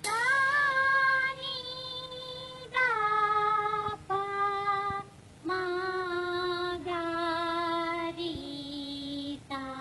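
Music: a high sung voice holding a series of long notes, about seven, each sliding up slightly into place and stepping lower in pitch than the one before, with no beat underneath.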